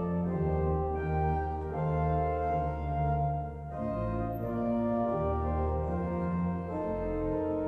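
Church pipe organ playing slow, sustained chords over a deep pedal bass, the notes changing every second or so, with no voice.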